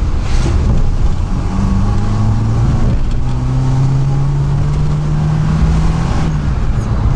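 Carburetted four-cylinder engine of a VAZ-2104 Zhiguli pulling in second gear, heard from inside the cabin over a heavy road rumble. Its pitch climbs slowly as the car gathers speed, with a short break about three seconds in and a change just after six seconds.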